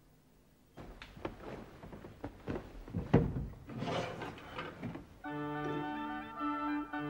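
Irregular clattering and knocking of objects being rummaged through, with one louder knock about three seconds in. About five seconds in, music with held, organ-like notes begins.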